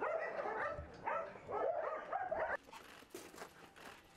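Several kennelled dogs barking and yelping over one another in high, bending calls, cutting off abruptly about two and a half seconds in. After that come only faint scattered ticks and steps.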